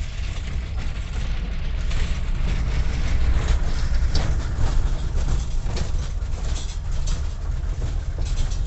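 Steady low rumble of a moving vehicle, with rattling and clattering knocks running through it.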